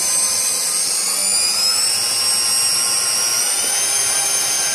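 Lab high-shear homogenizing emulsifier mixer running with a high whine, its pitch rising in two steps, about a second in and again around three seconds in, as the speed is turned up from about 5100 rpm.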